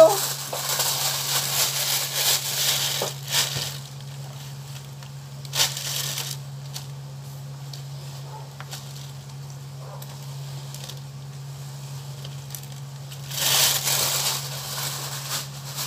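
Plastic bag crinkling and rustling as vegetable scraps are gathered off the counter into it, in bursts at the start, briefly around six seconds, and again near the end. A steady low hum runs underneath.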